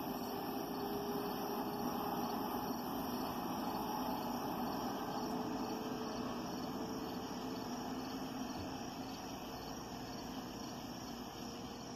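A steady low rumble that slowly fades, with crickets chirring steadily over it.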